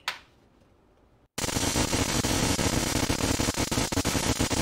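A switch clicks on, and about a second later high-voltage sparks from an oil-filled canister ignition coil start snapping across the gap of an adjustable spark tester in a rapid, steady crackle. The coil is firing strongly and tests good.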